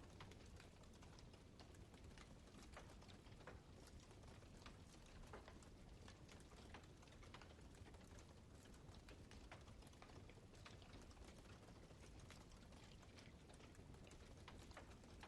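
Wood fire crackling faintly: irregular small pops and snaps over a low, steady rumble.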